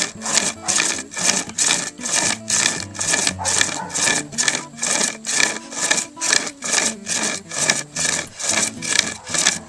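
Pocket chainsaw, a length of cutting chain with a handle at each end, drawn back and forth through a 2-inch maple branch. It makes a rasping stroke about twice a second, evenly repeated.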